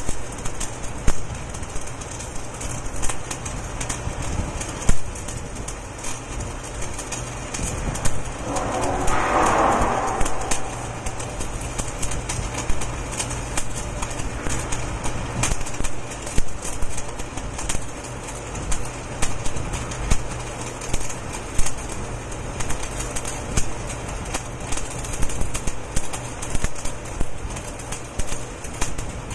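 Electric arc welding on a large steel spiral pipe: a steady, irregular crackle of the arc with a low hum underneath. About eight seconds in a louder rushing noise rises for a couple of seconds, then fades.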